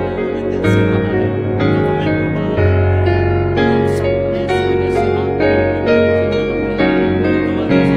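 Background music: a slow instrumental of held chords over a low bass note, the harmony changing every second or two.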